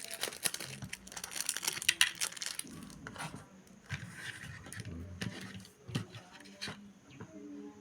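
Packaging crinkling and rustling as the contents of a box are handled, dense for the first two and a half seconds, then quieter scattered taps and knocks.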